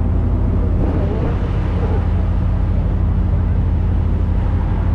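Boat engine running steadily under way, a deep even hum, with the rush of water churned up in the wake.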